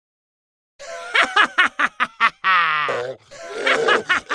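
A person laughing hard in quick bursts, starting about a second in, with one long falling 'haaa' in the middle before the bursts pick up again.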